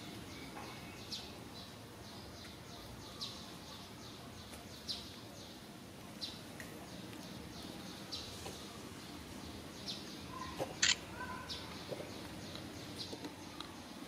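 Faint short high bird chirps every second or so over a steady outdoor background, with one louder, sharper call about eleven seconds in.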